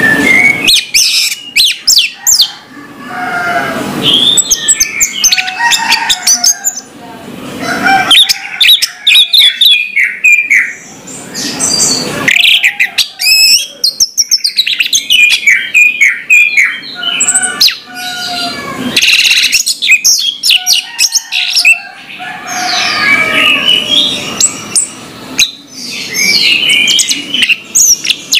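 Orange-headed thrush (anis merah) singing loudly: a varied song of rapid chirps, trills and whistles, in phrases a few seconds long separated by short breaks.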